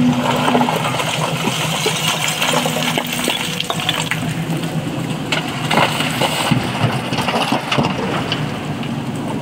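Broken stone clattering and knocking as a hydraulic excavator's bucket works through quarry rock. The knocks come irregularly and sharply, over the excavator's steady engine hum.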